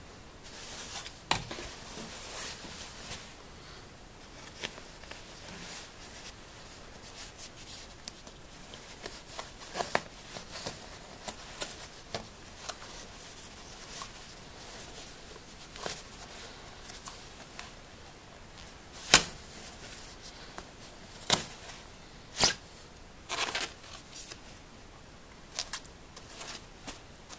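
Scissors cutting through a quilted nylon coat: irregular sharp snips amid the crinkling rustle of the shiny nylon fabric, the loudest snip about two-thirds of the way through, with a few more soon after it.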